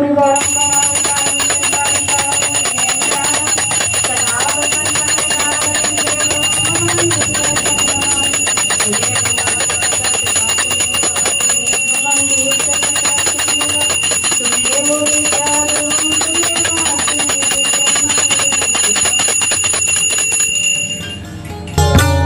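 Aarti: a hand bell rung rapidly and without pause under a sung devotional melody. The bell and song break off near the end.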